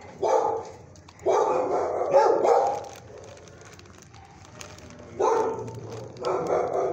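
Dog barking in an animal-shelter kennel, in four bouts: a short one at the start, a longer run about a second in, and two more in the second half.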